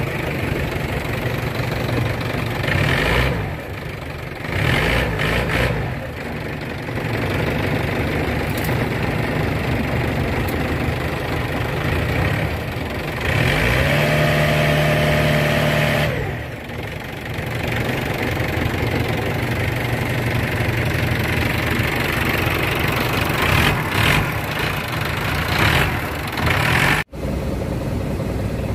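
Kato crawler excavator's diesel engine running steadily, revving up and holding a higher pitch for a couple of seconds about halfway through, then settling back.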